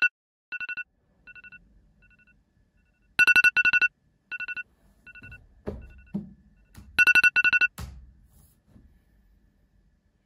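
Mobile phone alarm beeping in groups of rapid electronic beeps that get quieter, the pattern repeating about every four seconds. Bedding rustles about six seconds in, and the alarm stops with a sharp click about eight seconds in.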